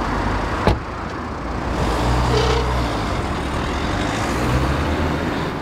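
A car door shuts with a single sharp thud about a second in, then the taxi's engine runs as the car pulls away.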